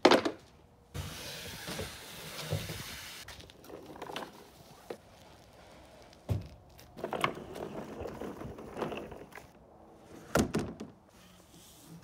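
Thunks and scraping from a plastic fishing kayak being handled and slid into a pickup truck bed: a sharp knock at the start, a hissing scrape lasting about two seconds, then more knocks and rubbing, with a loud knock near the end.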